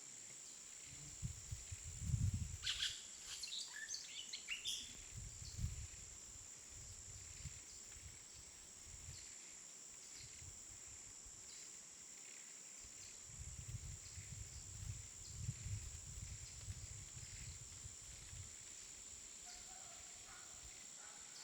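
Jungle ambience: a steady high-pitched insect drone throughout, a quick flurry of bird chirps a few seconds in and a few more calls near the end. Low rumbling comes and goes twice, early and again past the middle.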